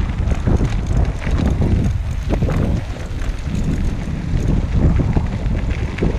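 Wind buffeting the microphone of an action camera riding on a recumbent trike over a dirt trail, a steady low rumble broken by irregular knocks and rattles from the bumpy ground.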